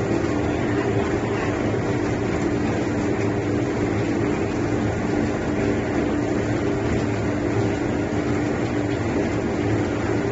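Industrial duck-plucking machine, a batch type that takes five ducks at a time, running with a steady mechanical hum of even pitch.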